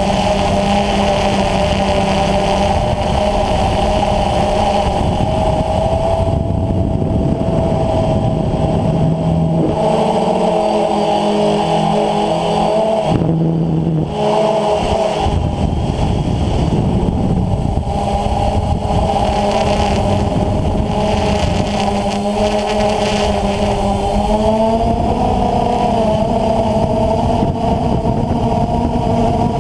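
DJI Phantom FC40 quadcopter's electric motors and 9450 propellers, heard close up from the camera on the aircraft, giving a loud, steady hum of several tones over a low rumble. The tones dip briefly about 14 seconds in and rise about 25 seconds in as the motor speeds change.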